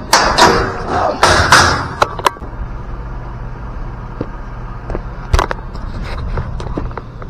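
Rustling and knocking from things being handled, loudest for the first two seconds. A low steady hum runs under it, and there is one sharp knock a little past five seconds in.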